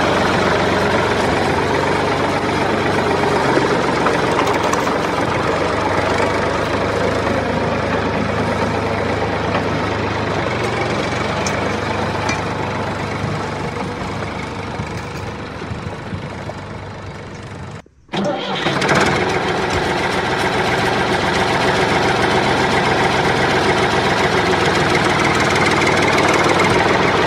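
Vehicle engine running steadily at idle; it cuts out abruptly for a moment about two-thirds of the way through, then comes back at full level.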